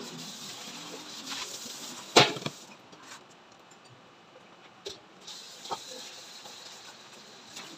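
A few sharp taps of a plate and utensil on a tabletop, the loudest about two seconds in, over a faint steady hiss.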